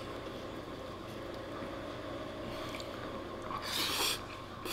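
A man slurping a forkful of spaghetti: a short, wet slurp about three and a half seconds in, after a stretch of low room noise while the fork twirls the pasta.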